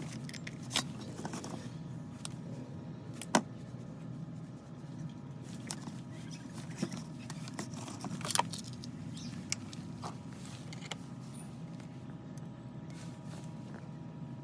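Scattered sharp clicks and light knocks over a steady low hum.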